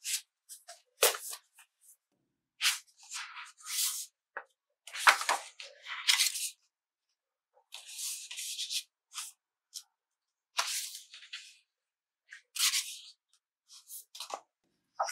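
Sheets of drawing paper rustling and sliding against each other as they are handled, then a sketchbook's pages being turned and pressed flat. These come as short, crisp swishes with brief silences between.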